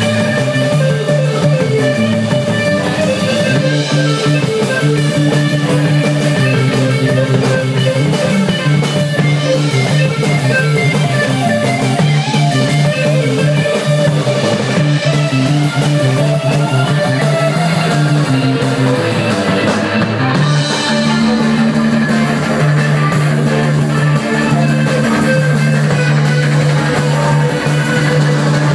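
Live rock band playing: guitar and bass over a drum kit, with the bass line shifting to a new note about two-thirds of the way through.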